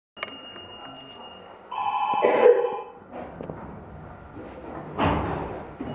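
An electric signal bell rings for about a second over a faint steady high whine, then a short noisy clunk follows near the end; in a funicular car standing at its station, this is the warning signal before departure.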